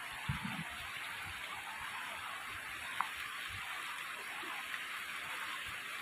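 Shallow river flowing over a stony bed: a steady, even trickling rush of water. A short low rumble comes near the start, and a faint click about halfway through.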